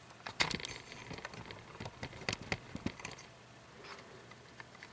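Scattered light clicks and taps of small metal lock parts and tools being handled during disassembly. The clicks cluster in the first three seconds and thin out after that.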